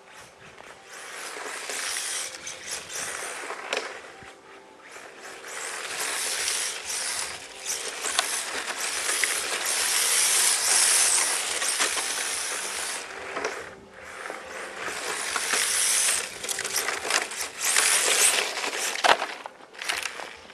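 Radio-controlled drift car (HPI Sprint 2 with brushless motor) driving on asphalt: its hard drift tyres hiss and the drivetrain whirs with ticking, growing louder and fading several times as the car comes near and moves away.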